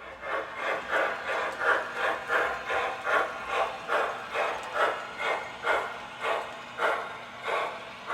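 Model 4-6-6-4 Challenger steam locomotive's sound system chuffing steadily, about three chuffs a second, with a faint steady hum underneath.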